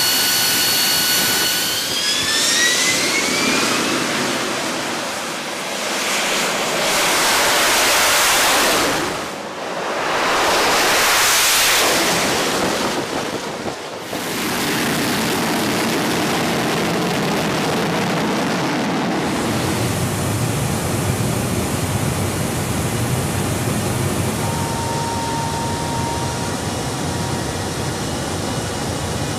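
AV-8B Harrier II's Rolls-Royce Pegasus turbofan: a high multi-toned whine rising in pitch as the engine spools up for launch, then two loud swelling roars of jet thrust. After an abrupt cut about 14 seconds in, a steady rushing jet roar runs on, with a faint thin tone briefly near the end.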